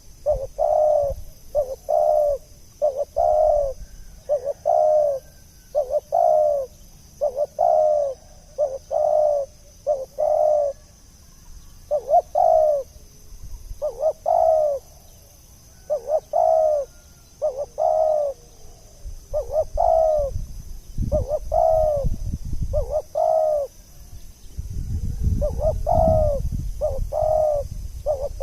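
Spotted dove (tekukur) cooing over and over in short repeated phrases of two- and three-note coos, a lure call used to attract wild doves. A low rumble sits under the calls twice in the second half.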